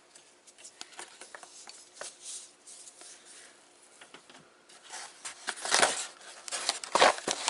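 A knife ticking and scraping lightly on cardboard as a small cardboard mailing box is popped open. About five seconds in come louder rustles as the cardboard flaps are pulled open and the crumpled paper packing inside is handled.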